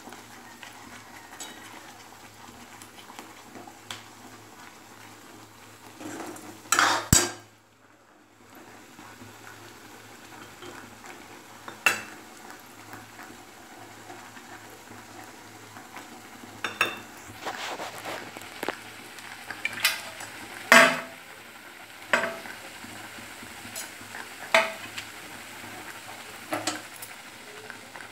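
A steel spoon scraping and clinking against a steel kadhai as thick, cooked besan zunka is stirred, over a faint steady sizzle from the pan on the flame. The clinks come at irregular moments, one loud one about seven seconds in and several more through the second half.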